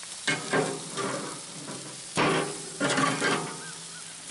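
Ribs sizzling over hot charcoal on a grill. A forged steel rib flipper scrapes and clatters against the metal grill grates several times as the ribs are turned.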